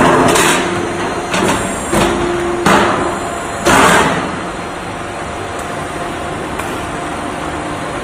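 Duct-line folding machine bending a sheet-metal blank into a square duct: several loud bangs and rattles of metal in the first four seconds, some with a short ringing tone, then a steady machine hum.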